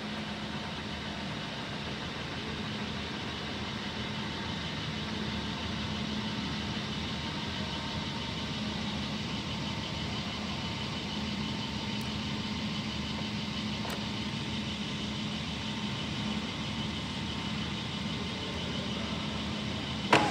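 BMP Voghera all-geared heavy-duty lathe running with its spindle at high speed, a steady hum from the headstock gearbox that grows a little louder a few seconds in as the speed is raised towards its maximum. There is no gear whine or rattle, which the seller takes as a sign of a gearbox and spindle in excellent condition.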